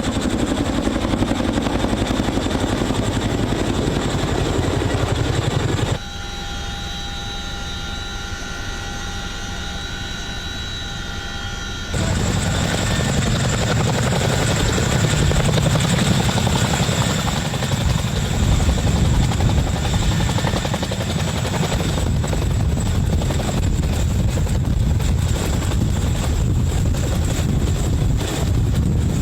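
Helicopter running, its rotor and engine making a steady noise. For about six seconds partway through, the sound drops and changes to a quieter one with steady whining tones.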